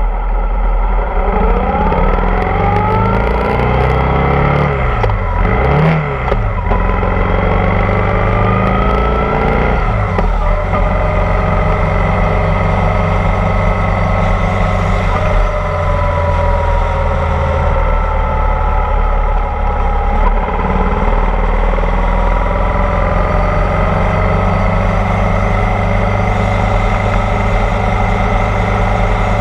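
Motorcycle engine running under way, its pitch rising and falling with acceleration and gear changes during the first ten seconds or so, then holding fairly steady with slow rises and dips.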